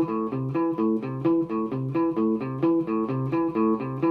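Acoustic guitar playing an A minor arpeggio: the root, minor third and fifth (A, C, E) picked one note at a time instead of strummed, repeated as a steady run of single notes.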